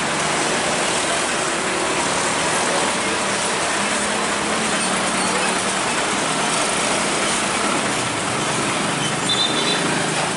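Steady road traffic: vehicle engines and tyre noise from passing traffic.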